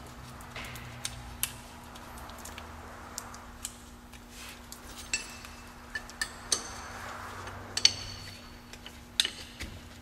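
Ratchet wrench tightening a brake caliper's guide-pin bolt: scattered metallic clicks and clinks, several with a short ring.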